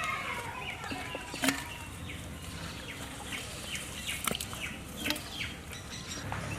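Birds chirping in short, falling calls, repeated many times, with a few sharp knocks, the loudest about a second and a half in.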